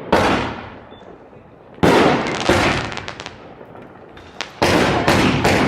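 Aerial fireworks bursting overhead: a string of loud booms, two about two seconds apart, then three in quick succession near the end, with crackling in between.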